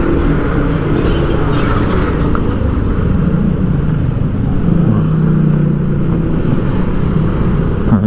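Motorcycle engine running while riding in car traffic, with a steady low rumble; the engine note holds level for a couple of seconds around the middle.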